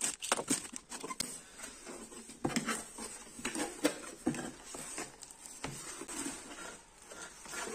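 A cardboard box being opened: a utility knife slits the packing tape, then the flaps are pulled open and plastic wrapping crinkles, giving an uneven run of scratches, crackles and rustles.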